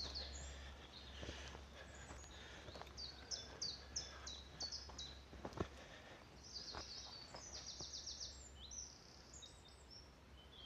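Wild songbirds singing in woodland: short phrases of rapidly repeated high notes, over a faint steady background rumble, with a few faint knocks.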